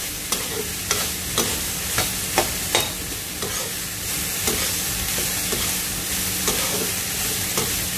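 Chopped winged beans sizzling in oil in a frying pan, with a steady hiss. A spatula stirring them scrapes and clicks against the pan about seven times.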